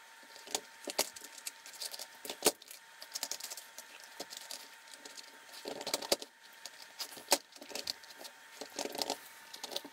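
A dog working a plastic Dog Brick treat puzzle: quick, irregular plastic clacks and rattles as its nose pushes the sliding lids against the tray, several of them sharp and loud. The footage runs at four times speed, which crowds the clacks together.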